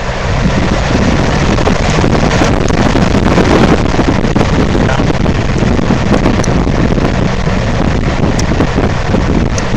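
Lasko 3733 box fan running on its high setting, its airflow buffeting the microphone as a loud, steady rush of wind noise.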